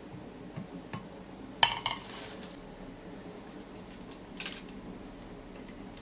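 Metal fork clinking against a glass bowl of melted chocolate: one sharp clink a little over one and a half seconds in and a fainter one about four and a half seconds in, with soft scraping between.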